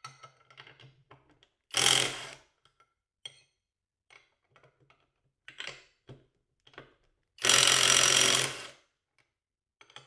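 Skil 12V impact driver on its low-speed setting hammering a bolt on a torque-test rig: a short burst about two seconds in and a longer one of more than a second near the end, with small clicks and knocks of handling between.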